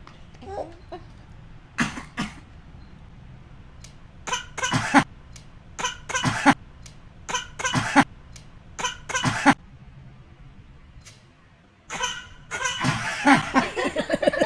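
A one-year-old boy fake-coughing: groups of two or three short coughs, a group every second or two, then laughter near the end.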